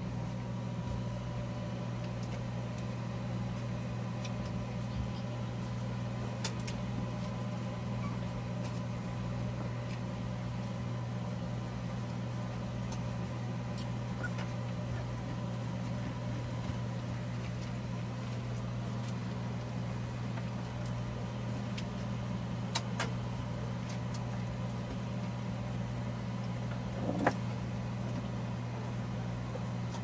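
Steady low hum of a powerful electric fan running, with a few faint clicks, the sharpest about three seconds before the end.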